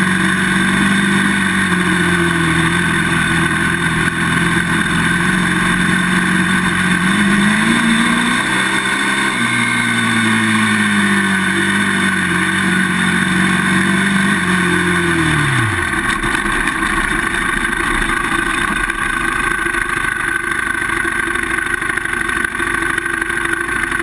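Polaris Outlaw 525 quad's KTM single-cylinder four-stroke engine running on the move, its pitch rising and falling with the throttle. About two-thirds of the way through, the engine note falls away steeply and is gone, leaving a steady rush of wind and tyre noise on gravel.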